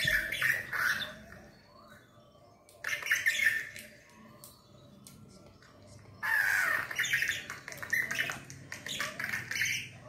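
Budgerigar chattering in scratchy, squawky bursts: about a second and a half at the start, a short burst about three seconds in, and a longer run of chatter from about six seconds in until near the end.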